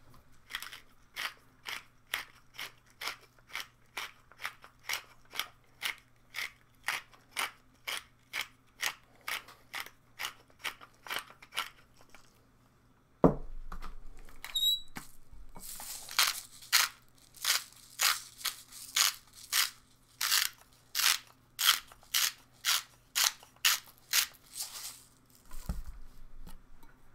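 Hand spice grinders being twisted, each turn a short crunching grind, about two a second at first. About halfway there is a pause and a single thump, then a second stretch of somewhat faster, louder grinding strokes, the seasoning of pepper and salt over the chicken.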